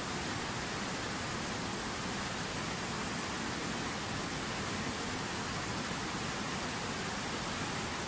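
Fast-flowing mountain river rushing over rocks, a steady, even rush of white water.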